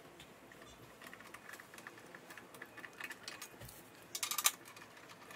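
Socket ratchet with an 8 mm socket clicking faintly as bolts are backed out of a small engine's metal cover, with a short run of louder metal clicks about four seconds in.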